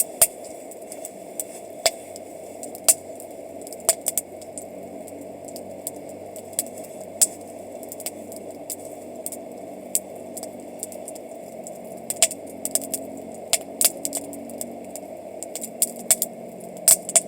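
Wood campfire crackling, with irregular sharp pops and snaps, a few much louder than the rest, over a steady low hiss.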